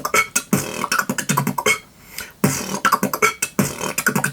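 Beatboxing: a fast run of vocal drum sounds, mouth-made kicks, snares and hi-hats, in two phrases with a short break about two seconds in.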